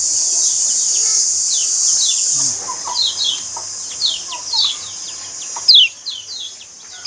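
Kecial kuning white-eyes chirping in a songbird training track: a steady high hiss for the first couple of seconds, then a quick run of sharp high chirps, each sliding down in pitch, the loudest about three-quarters of the way through.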